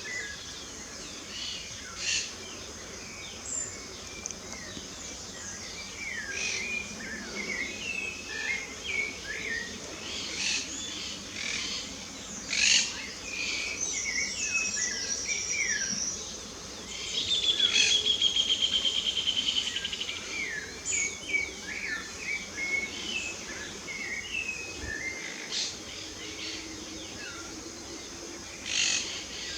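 Several songbirds singing and calling at once, many short whistled notes and chirps overlapping. A loud, rapid trill runs for about three seconds past the middle.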